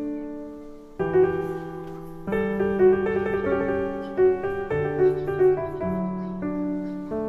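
Slow solo piano music: a gentle melody over held chords, with notes struck and left to ring.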